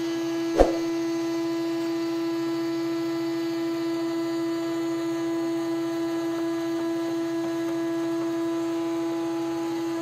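Wood-Mizer WM4500 industrial band sawmill running and sawing a squared timber: a steady hum at one fixed pitch, with a single sharp knock about half a second in.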